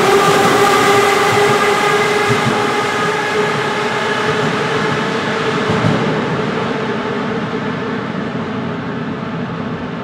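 Moscow Metro 81-717/81-714 metro train departing and running into the tunnel: a steady whine that fades over the first few seconds, then a rumbling rush that slowly dies away as the train recedes.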